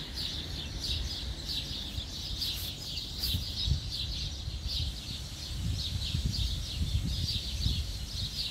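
Small birds chirping, short calls repeated about two to three times a second, over a low outdoor rumble.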